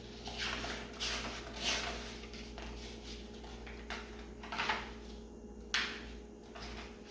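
A paper activity book being handled and its pages turned: a series of short papery rustles with a few soft knocks.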